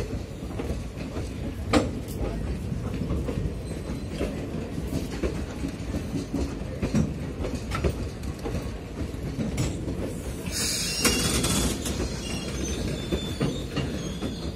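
Indian Railways sleeper-class passenger coaches rolling slowly past on a shunting move. The wheels rumble steadily, knocking over the rail joints, with a sharper knock about two seconds in. A short high screech of wheels on rail comes about ten seconds in.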